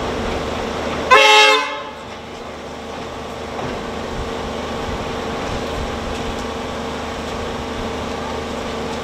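Victorian Railways Y-class diesel shunting locomotive Y133 running slowly with a steady engine drone. It gives one short, loud horn blast about a second in.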